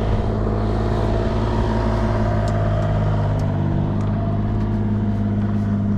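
An engine running steadily at constant speed, its pitch shifting a little partway through, with a few faint clicks over it.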